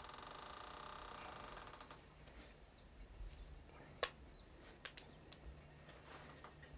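A blade shaving a wooden strip by hand: a fast, fine scraping for about two seconds, then a few faint clicks and one sharper tick about four seconds in.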